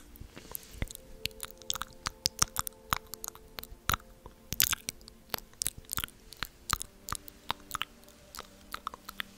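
Close-miked ASMR mouth sounds: irregular wet clicks and smacks, several a second, some much sharper than others.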